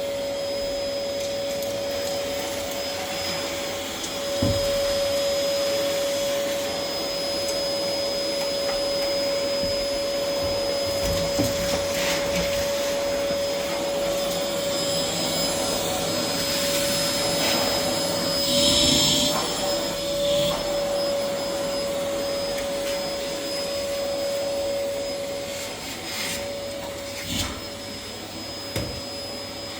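Vacuum cleaner running steadily, its motor holding one even whine over a rushing noise. Around two-thirds of the way in the pitch wavers and it briefly gets louder.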